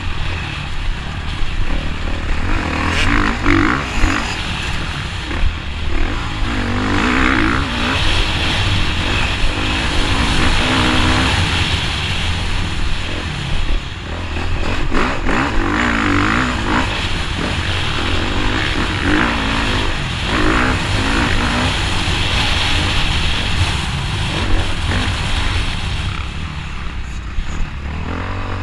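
Motocross bike engine under hard riding, revving up and down repeatedly over a steady low rumble, heard from on the bike. The engine eases off near the end.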